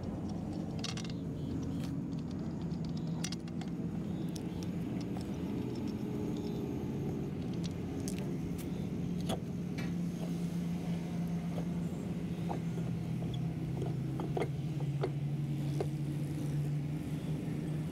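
A motor running steadily with a low, even hum that drops slightly in pitch near the end, with scattered light metal clicks as wheel nuts are handled.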